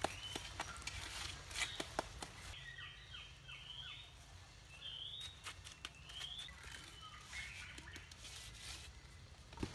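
A steel trowel taps and scrapes mortar onto cement blocks, giving a few sharp knocks in the first two seconds and a few more later. Birds chirp with short rising calls through the middle.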